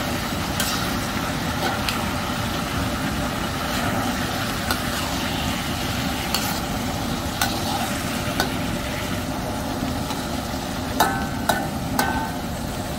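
Shredded squash stir-frying in a steel wok, sizzling steadily while a metal spatula scrapes and tosses it, with a scrape or click about every second. Near the end the spatula strikes the wok three times, each clink ringing briefly.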